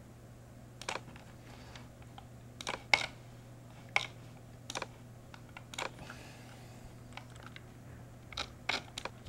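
Scattered sharp clicks from a computer mouse and keyboard being worked, about nine at irregular spacing and some in quick pairs, the loudest about three seconds in, over a faint steady low hum.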